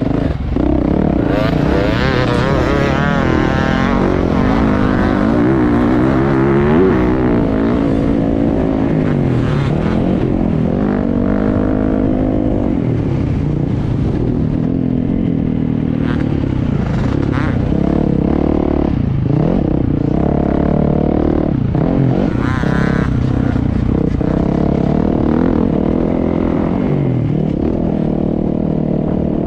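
Dirt bike engine heard close up from the bike being ridden around a motocross track, revving up and dropping again and again as it accelerates out of turns and backs off.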